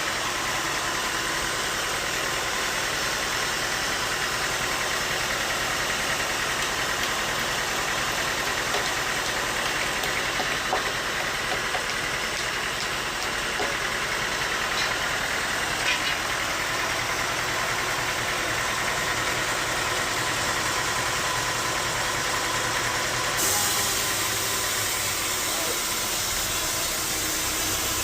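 Bandsaw sawmill machinery running steadily, with a few faint clicks. The sound shifts abruptly about 23 seconds in.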